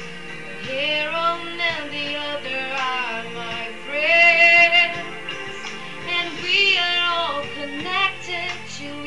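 A teenage girl singing solo over an instrumental backing track, with long held notes that waver in pitch; the loudest, highest note comes about four seconds in.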